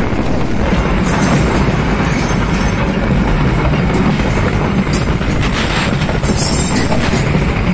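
Freight train of empty flat wagons rolling past close by: a loud, steady rumble of steel wheels on the rails, with a few short sharper high-pitched stretches of wheel noise about five and six seconds in.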